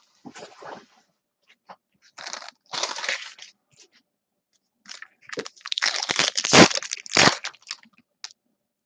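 Crinkling and crackling of plastic trading-card packaging being handled, in several short bursts with small clicks, loudest about six to seven seconds in.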